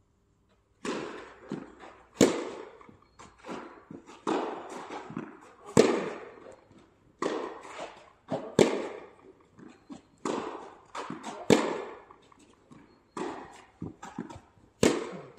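A tennis rally: the ball is struck back and forth with rackets, a sharp hit about every one and a half seconds, alternating louder and softer as the near and far players strike. Softer knocks of ball bounces and footsteps on the court fall between the hits.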